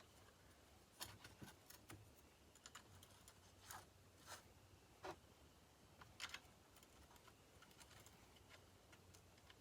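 Faint, scattered clicks and taps of small screws and metal parts being handled during chainsaw reassembly, about a dozen irregular ticks over near silence.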